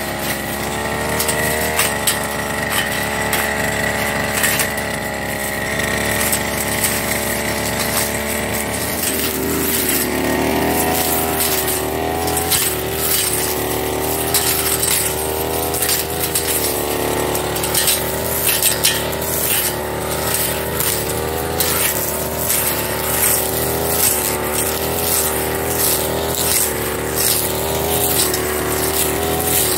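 Firman FGB389 backpack brush cutter's small petrol engine running at high revs. From about nine seconds in its pitch wavers up and down as the blade works into the growth, with many sharp ticks and swishes of the blade cutting grass and reed stalks.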